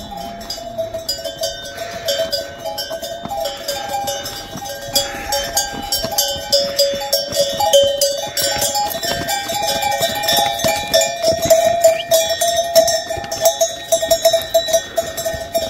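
Several metal bells clanking and jangling without a break, a mix of ringing tones and quick, irregular strikes.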